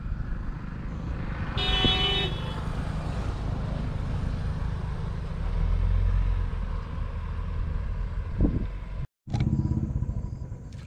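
Road traffic: a vehicle horn honks once, briefly, about two seconds in, over a steady low rumble that swells as a vehicle passes around six seconds in.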